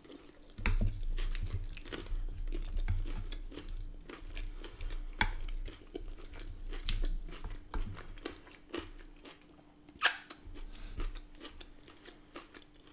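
Close-miked chewing and crunching of a mouthful of lettuce, cucumber and onion salad with rice and battered chicken, with wet mouth sounds. The chewing is broken by a few sharp clicks, the loudest about ten seconds in.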